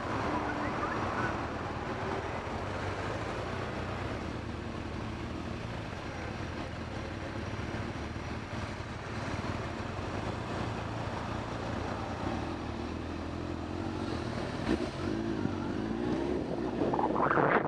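Motorcycle engine running steadily at low revs while the bike rolls slowly, with the revs rising a little late on. Near the end, a rush of wind noise on the microphone swells as it speeds up.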